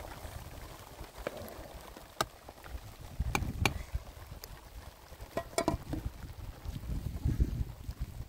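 Metal ladle stirring a pot of milk over a wood fire, with a few sharp metal-on-metal clinks of the ladle and lid against the pot, over a low rumble of wind on the microphone.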